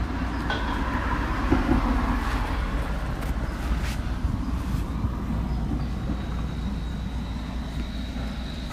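Heavy machinery running with a steady low rumble, with a few sharp metallic clanks in the first half and a thin high whine from about six seconds in.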